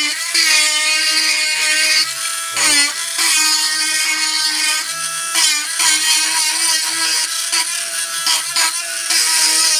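Cordless electric engraving pen running with a steady whine as it engraves wood, its pitch dipping briefly three times.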